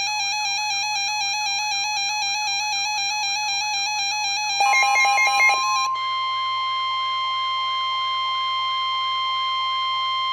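Emergency Alert System alert tones for a snow squall warning. An electronic warbling alarm sweeps quickly up and down. A short burst of rapid data tones comes about five seconds in, and from about six seconds the steady, single-pitch weather radio attention tone sounds, which comes just before the spoken warning.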